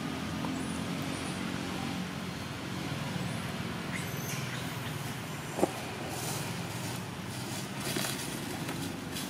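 A motor engine running steadily at a low, even pitch, with a single sharp click about halfway through.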